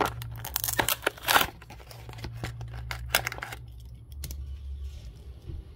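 Plastic blister packaging of a carded Hot Wheels car crinkling and tearing as it is handled and opened, with sharp clicks, for about the first three and a half seconds; then it goes quieter over a low steady hum.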